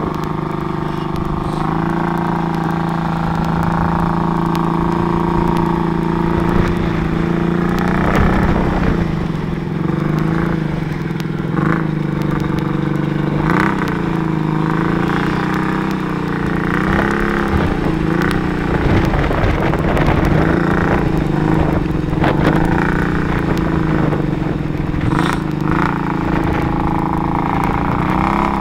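ATV engine running hard and revving as the four-wheeler churns through deep mud, its pitch rising and falling again and again.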